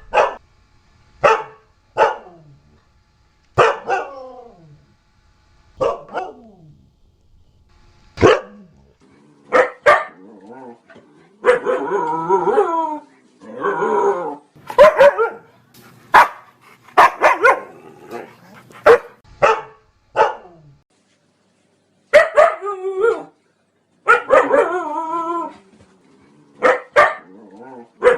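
Siberian husky barking and yelping: short, separate barks falling in pitch at first, then longer wavering cries in clusters from about eleven seconds on.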